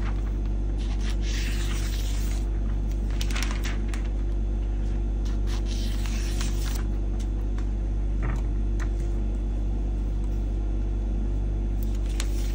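Scissors cutting through florist's cellophane wrapping film, with three bursts of rustling and snipping in the first seven seconds, over a steady low hum.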